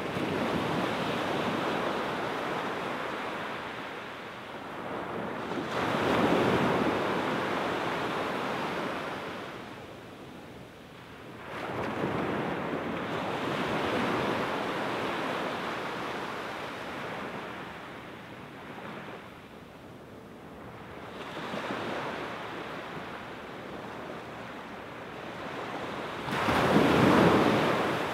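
Small waves breaking and washing up a sand beach. The surf swells and fades in surges several seconds apart, the loudest one near the end.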